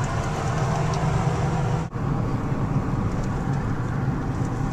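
Car driving, heard from inside the cabin: steady engine and road rumble. The sound briefly cuts out about two seconds in.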